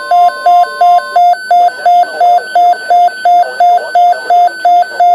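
Weather alert radio sounding its alarm: a loud, rapid electronic beeping, nearly three beeps a second, set off by an incoming severe weather alert. For about the first second the steady weather alert tone is faintly heard beneath it.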